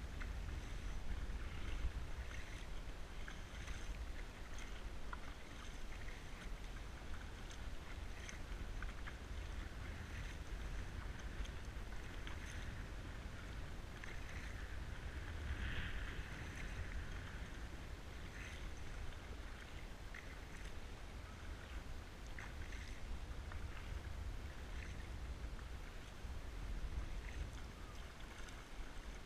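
Kayak paddle dipping and pulling through calm sea water, with drips and small splashes scattered through, over a steady low rumble. A slightly louder splash comes about halfway through.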